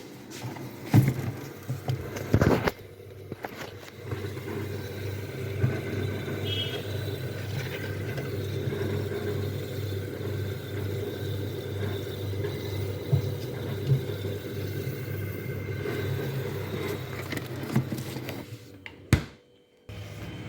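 Refrigerator compressor running with a steady low hum after a refrigerant recharge. A few knocks and clicks of handling come in the first few seconds, and the sound drops out briefly near the end.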